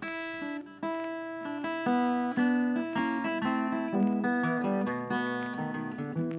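Background music: a guitar playing a flowing line of plucked notes and light strums.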